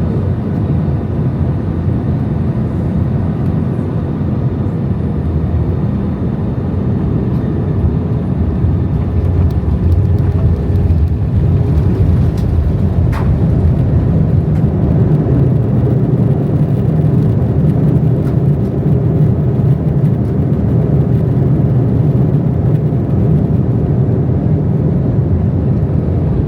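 Steady low drone of an Airbus A320's jet engines and airflow, heard from inside the passenger cabin. It grows a little louder about nine seconds in.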